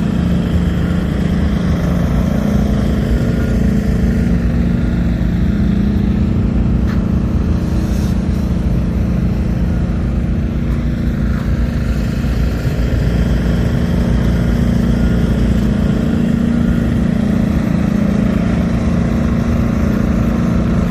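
SDMO 480 kVA diesel generator's Volvo six-cylinder engine running steadily at a constant speed.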